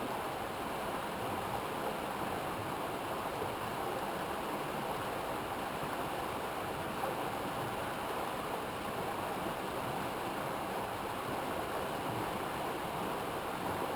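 River water rushing and babbling over rocks, a steady even noise.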